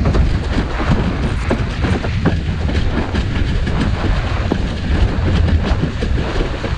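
Wind buffeting a helmet-mounted camera's microphone as a windsurf board planes, with water rushing under the hull. Irregular sharp slaps come several times a second as the board strikes small chop.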